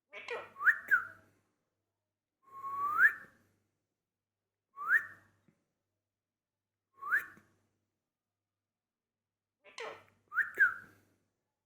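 Green Indian ringneck parakeet whistling: a string of short rising whistles, about one every two seconds, some in quick pairs led by a fast falling sweep.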